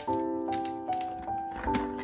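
Background music: a simple, light melody of held keyboard-like notes, changing pitch about every half second.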